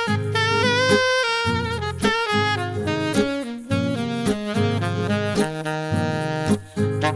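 Instrumental break of a pop/R&B song: a held lead melody with vibrato, saxophone-like, over bass and regular drum hits.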